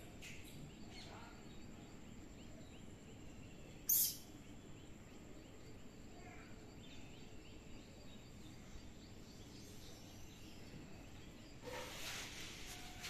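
Outdoor ambience with faint bird calls. About four seconds in there is one brief, sharp, high-pitched sound, and near the end a hissing rush lasts about a second.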